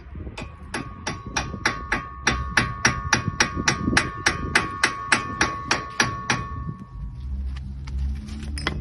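Hammer striking a wheel stud in a car's wheel hub, about twenty quick metal-on-metal blows at three to four a second, with a ringing tone between them, stopping about six seconds in.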